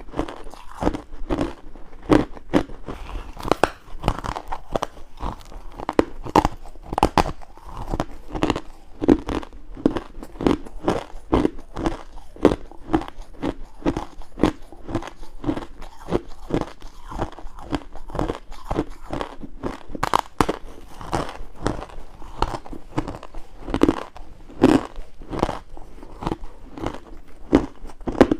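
Close-up crunching of ice being bitten and chewed: rapid, irregular crunches, several a second, with louder bites now and then.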